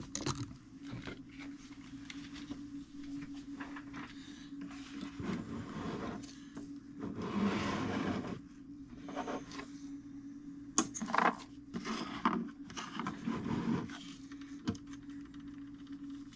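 Handling noises at a workbench: irregular scraping and rubbing, then several sharp clicks and knocks, over a steady low hum.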